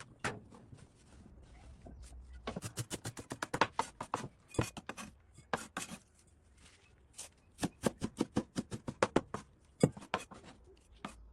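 Knife chopping on a cutting board in two quick runs of sharp strokes, with a short pause between them.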